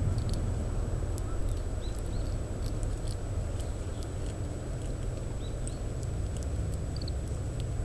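Oriental greenfinch giving soft, short call notes several times while feeding, with small sharp clicks as it shells seeds. A steady low wind rumble runs underneath.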